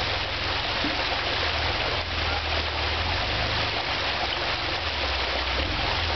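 Jeep Wrangler engine running at low revs as it crawls over rock ledges, its low hum shifting slightly a few times, under a steady rushing of running water.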